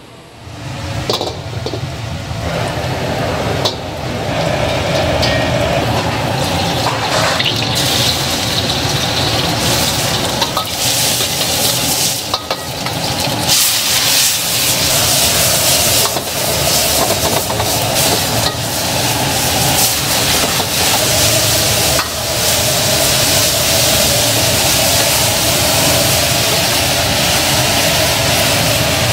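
Stir-frying in a wok over a high gas flame: sizzling and a steady flame rumble, with a metal ladle clanking and scraping against the wok many times. It starts abruptly about half a second in.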